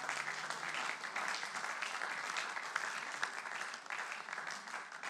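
Applause from many seated parliament members clapping together, thinning a little near the end.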